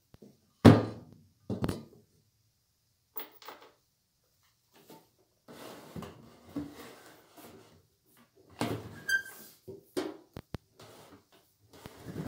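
Handling noise from a benchtop band saw that is not running: a sharp thunk of the machine or its parts on a wooden workbench under a second in, another knock a second later, then scattered knocks, scrapes and rubbing as the saw body is gripped and turned around on the bench.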